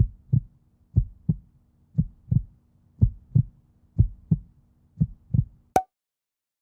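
Heartbeat sound effect: six slow double thumps, about one a second, then a single sharp click near the end.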